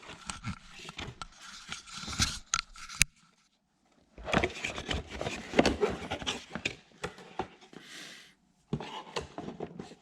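Cardboard box and lure packaging being handled and opened: scraping, rubbing and clicking in stretches, with a pause of about a second about three seconds in.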